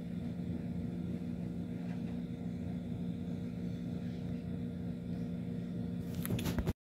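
Steady low mechanical hum in a small room, like a running fan or motor. About six seconds in come a few handling knocks from the phone, then the sound cuts off abruptly.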